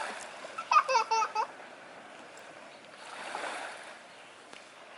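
Small waves washing on the shore, with a gentle swell about three seconds in. Near the start comes a short, high-pitched voice, like a child's squeal.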